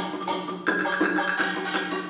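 Percussion trio on metals, woods and skins playing a dense pattern of quick stick strikes, with a sharp accent a little after half a second in.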